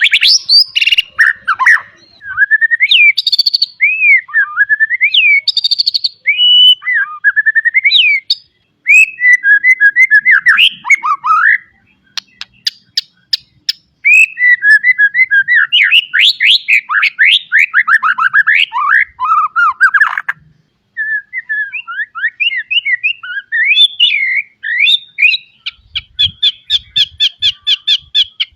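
White-rumped shama singing a loud, varied song of whistled phrases, quick trills and mimicked notes. A run of sharp clicking notes comes about halfway through, and a fast, even series of short notes comes near the end.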